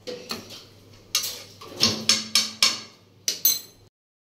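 Stainless steel kitchen utensils clinking: a steel spoon knocking against steel pots and bowls in a quick run of sharp metal clinks with short ringing about a second in, and two more near the end.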